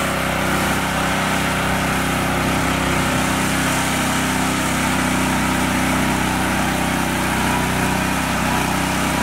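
Small engine of a mini tractor running steadily at an even pitch and level, with no revving.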